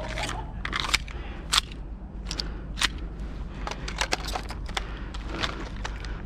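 Airsoft gunfire: a string of sharp, irregular pops and clicks from gas-blowback guns, some close together, over a steady low rumble.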